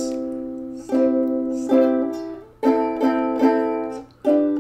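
Ukulele strummed between sung lines: a chord left ringing, then a string of chords strummed one after another, each ringing out and fading.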